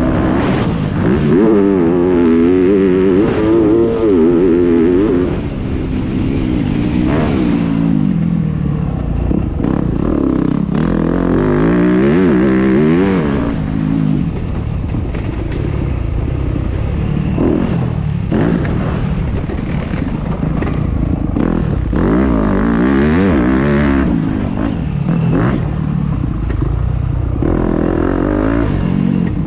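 Motocross bike engine heard close up from on board, revving up and falling back again and again as the rider accelerates and backs off around the dirt track.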